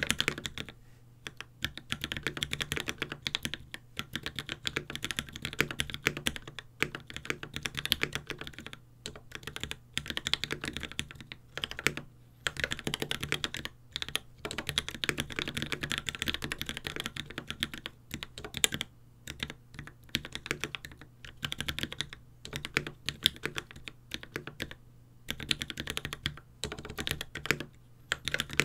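Typing on a Space65 custom mechanical keyboard with lubed Tealios V2 linear switches, GMK ABS keycaps and a carbon fibre plate: quick runs of keystroke clacks broken every few seconds by brief pauses.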